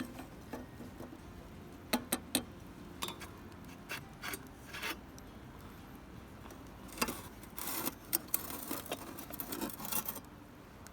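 Irregular rubbing, scraping and clicking handling noises, starting about two seconds in and stopping about a second before the end.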